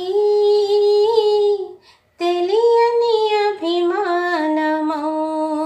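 A woman singing a slow melody in long held notes. She breaks off briefly about two seconds in, then goes on, dropping to a lower held note a little later.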